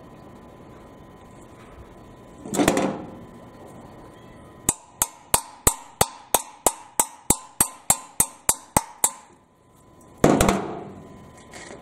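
A hammer striking a steel socket to drive it onto a rounded-off exhaust manifold bolt: about fourteen sharp ringing blows at roughly three a second. A short clatter comes before the blows, and a louder one after them.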